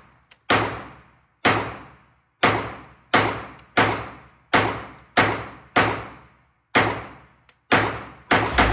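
Glock 17 Gen 3 9mm pistol firing deliberate single shots about a second apart, each trailing off in echo. Near the end it breaks into rapid fire as the rest of the 33-round magazine is dumped.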